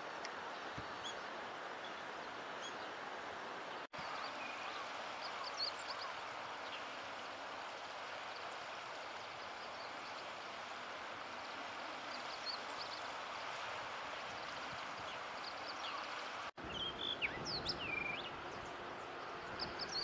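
Steady outdoor background hiss with faint, scattered small-bird chirps. About three-quarters of the way through, a few clear whistled phrases of blue rock thrush song, the loudest sound here.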